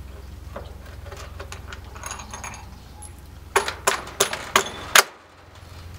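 A 3/8-inch steel bolt being fitted through a freshly drilled hole in a wooden post: small metal clinks, then about six sharp knocks in quick succession as the bolt is worked into the hole. A steady low hum runs underneath.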